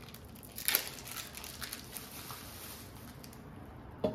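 Faint rustling and light clicks of a plastic bag of cheese slices being handled, with a brief rustle just under a second in and a sharper click near the end.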